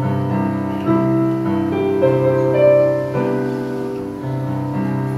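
Piano playing a slow song introduction, sustained chords changing about once a second.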